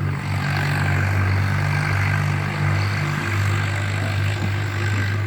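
A motor or engine running steadily with a low, even hum and some mechanical noise over it.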